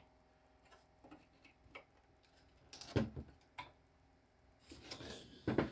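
Small clicks and taps of needle-nose pliers working at a stubborn lens retaining clip on a 1971 Mustang instrument cluster, with a sharper knock about three seconds in and another near the end.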